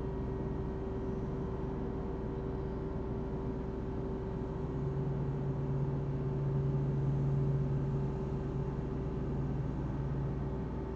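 Steady low hum with a constant tone over a rumble. A deeper tone swells in about four or five seconds in, peaks, and fades out near the end.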